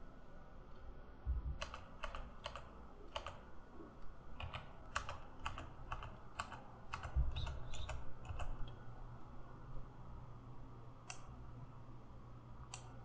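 Computer keyboard typing: a run of about fifteen separate keystrokes over several seconds, then two more single clicks near the end.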